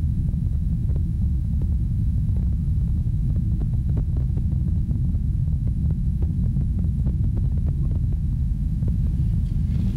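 A dense, steady low rumble with scattered crackling clicks, from a recording presented as the sound captured 9 km deep inside the Earth, which is likened to fire or magma.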